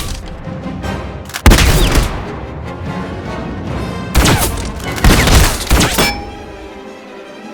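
Cinematic sound effects over a musical bed: a heavy sudden impact about one and a half seconds in, then a cluster of blasts and hits between about four and six seconds, each with a ringing tail, fading to sustained tones near the end.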